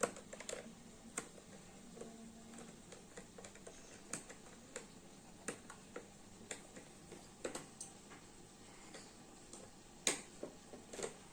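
Faint, irregular clicks and taps from a toy and its box and packaging being handled as they are opened, the sharpest right at the start and about ten seconds in.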